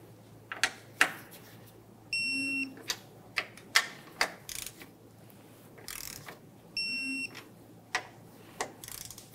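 Digital torque wrench beeping twice, each a high half-second tone, as strut mount nuts reach their 22 ft-lb setting. Short clicks sound between the beeps as the wrench and socket work the nuts.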